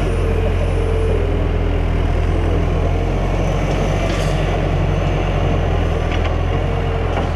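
Diesel engine of a Caterpillar tracked excavator running steadily under load while it digs and swings its bucket over a dump truck, with a brief rattle about four seconds in.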